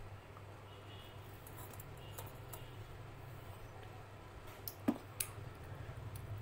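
A small stainless steel bowl set down on a steel thali plate: a sharp metallic clink about five seconds in, followed a moment later by a lighter tap. Before it, a few faint mouth sounds from sipping out of the bowl, over a low steady hum.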